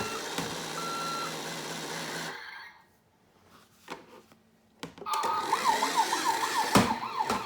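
Road Rippers toy police car's electronic sound effects through its small speaker. A noisy sound effect stops about two seconds in, a few clicks follow, then a fast up-and-down yelp siren starts about five seconds in.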